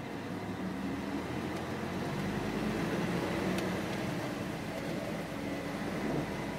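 Scania bus engine running, heard from inside the passenger saloon. The engine sound grows louder about two seconds in, with a low rumble joining underneath.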